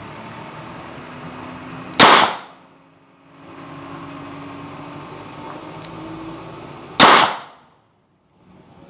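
Two shots from a long-barrelled 9 mm revolver, about five seconds apart, each a sharp crack with a short echo.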